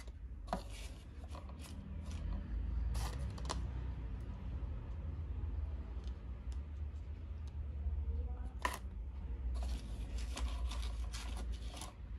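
Stiff paper rustling with light clicks and taps as small perfume sample cards in paper sleeves are handled and set down on a desk, a cluster of them near the end, over a steady low hum.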